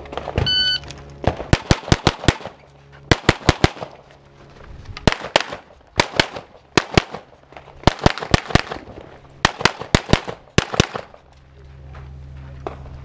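A shot timer's start beep, then rapid pistol fire from a practical-shooting stage: quick pairs and strings of shots with short pauses between strings, stopping about two seconds before the end.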